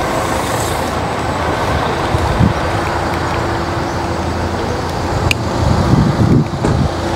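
Steady motor-vehicle and road noise with a low rumble; a steady hum joins about two seconds in.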